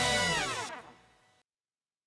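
Background music winding down, every note sliding down in pitch together like a tape-stop effect, fading out and cutting to silence about a second and a half in.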